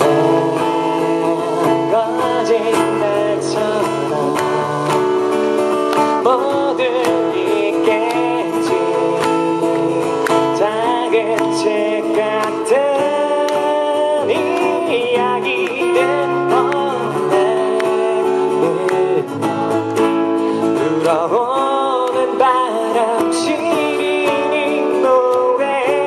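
Live acoustic guitar-and-vocal performance: a male singer over a strummed steel-string acoustic guitar, amplified through the stage sound system.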